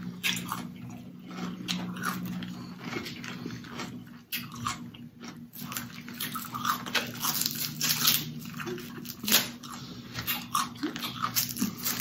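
Snow crab legs being cracked open and eaten: repeated sharp shell cracks and crunches mixed with chewing.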